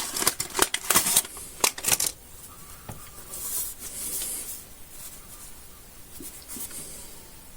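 Candy wrapper crinkling in quick, dense crackles for about two seconds, then only soft, faint rustling.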